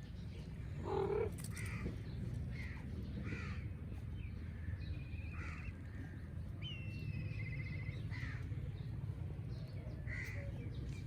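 A series of short animal calls and chirps, two of them trilled, with a fuller, lower call about a second in, over a steady low background rumble.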